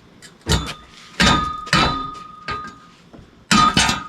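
A run of metal clanks and knocks, some followed by a brief ringing tone, from steel jacks and lifting gear being worked under a car body.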